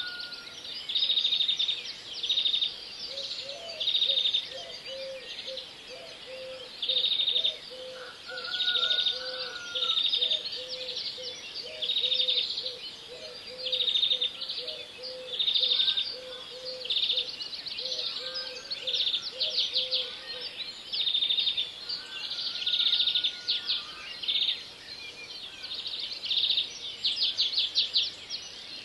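Birds chirping: a high, rapid trill repeated about once a second, with a lower pulsing call running underneath from a few seconds in until about two-thirds of the way through.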